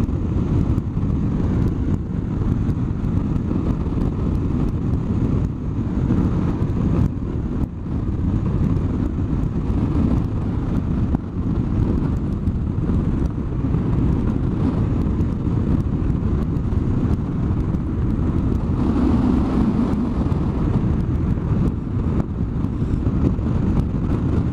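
Riding noise on a BMW R1100RS motorcycle: a steady rush of wind and road noise at speed, with the bike's boxer-twin engine running underneath.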